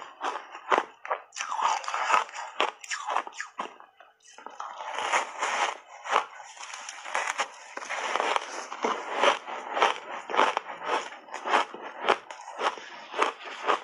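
Biting and chewing of refrozen block ice coated in matcha powder, close to a lapel microphone: repeated, irregular crunching and crackling, with a brief lull about four seconds in before a fresh bite.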